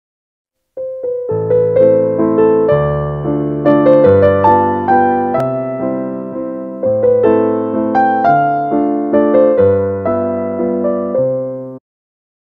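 Intro music on an electric-piano-type keyboard: a gentle run of struck notes and chords that each fade, starting about a second in and stopping abruptly shortly before the end.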